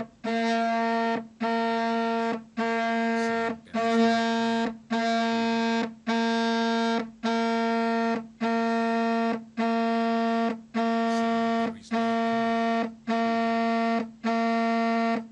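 Cell phone vibrating in repeated buzzes, each about a second long with short breaks between, a steady low hum about thirteen times over; it stops suddenly at the end.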